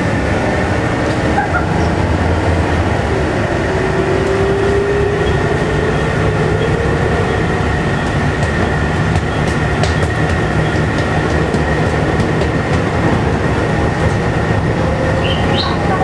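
Volvo B7TL bus's six-cylinder diesel engine and drivetrain heard from inside the passenger saloon while the bus drives: a steady low rumble with a high whine held throughout. A fainter whine rises in pitch a few seconds in, and there are a few light rattles near the middle.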